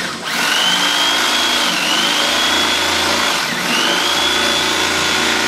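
Electric carving knife running as it cuts through thick case foam: a steady motor whine and buzz, the whine dipping briefly twice.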